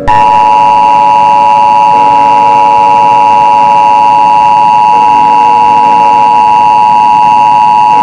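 Emergency Alert System attention signal: a loud, steady dual-tone beep, two close notes (853 and 960 Hz) sounding together, starting abruptly and holding without a break. It is the alert tone that precedes an emergency broadcast message.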